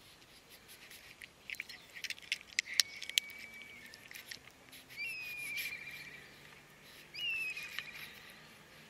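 A cat crunching dry cat food right at the microphone: a quick run of sharp clicks. Then a bird gives two whistled calls that drop in pitch and trail off with a flutter.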